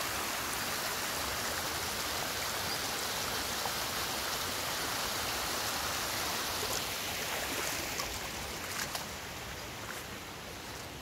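Shallow floodwater running over stones and sand in a washed-out stream channel: a steady rushing hiss that grows fainter over the last few seconds, with a few light clicks near the end.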